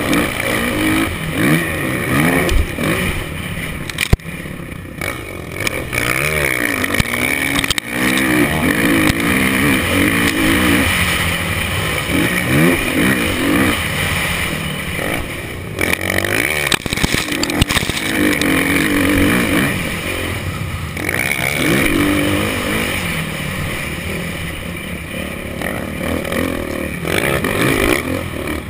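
Motocross dirt bike engine, heard from the rider's helmet camera, revving up and down again and again through corners and straights, with wind rushing over the microphone. A sharp knock comes about four seconds in.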